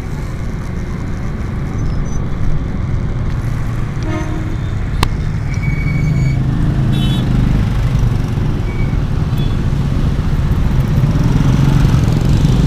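Motorcycle engine running in slow, dense traffic, with other motorbikes and cars around. Brief horn toots about four and seven seconds in.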